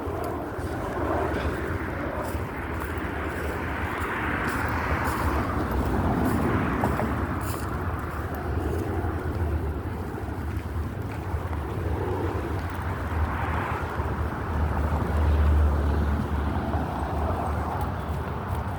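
Steady outdoor background noise over a continuous low hum, with no distinct events.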